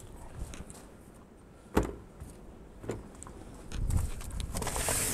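Things being shifted inside an RV's pass-through storage compartment: a sharp knock a little under two seconds in and a lighter one a second later. Near the end comes the crinkle of a paper charcoal bag being pulled out.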